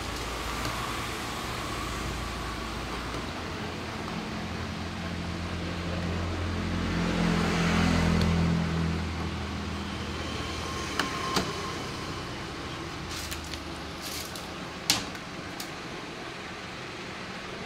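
A motor vehicle passing close by: its engine hum rises to a peak about eight seconds in and then fades. A few sharp clicks and taps follow near the end.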